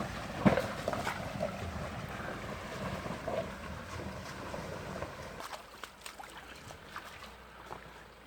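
SsangYong Rexton SUV driving along a rocky stream bed, its tyres rolling over stones and through shallow water with repeated knocks from the body and suspension. The strongest knock comes about half a second in, and the noise grows quieter after about five and a half seconds.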